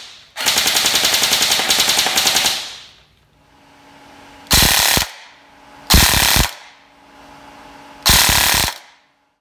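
Airsoft electric gun gearbox with JG 18:1 gears cycling on full auto: one rapid rattling burst of about two seconds, then three short bursts of about half a second each.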